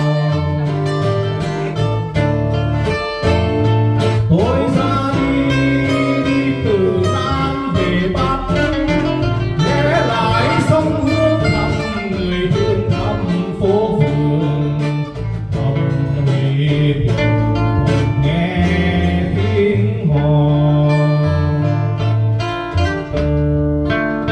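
Live acoustic band: a man singing a Vietnamese song into a microphone over two acoustic guitars and an electric bass guitar. Near the end the singing stops and the guitars and bass play on.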